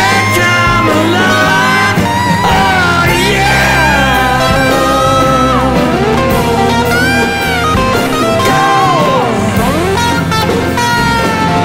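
Recorded rock song in an instrumental stretch: a lead guitar solo with notes that bend and slide in pitch, over a steady bass and rhythm backing.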